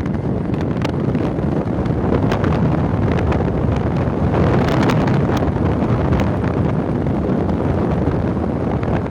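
Wind buffeting the microphone: a steady, loud low rumble with occasional faint crackles.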